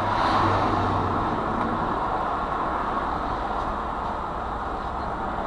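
Steady traffic noise from cars and trucks passing on a multi-lane highway, a little louder about half a second in.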